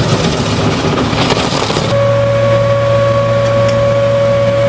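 Hydrodemolition machine's 10,000 psi water jets blasting concrete, a loud rough hiss. About two seconds in it gives way abruptly to the steady drone of heavy truck machinery, a low hum with a clear steady whine.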